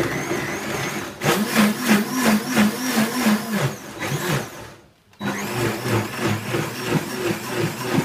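High-speed countertop blender churning a thick load of fresh and soaked sun-dried tomatoes, running with an uneven pulsing as the contents catch before they turn liquid. The motor cuts out about five seconds in and starts again at once.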